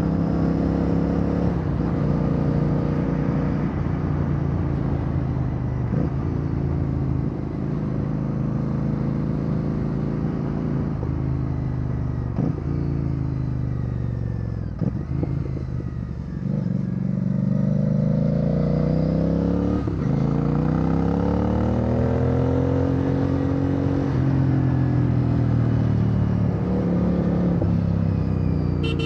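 Royal Enfield Bear 650's 648 cc parallel-twin engine through a Red Rooster Performance aftermarket exhaust, heard from the saddle while riding. It holds steady at first, drops in revs about halfway through, then climbs and falls again several times as the bike accelerates and eases off.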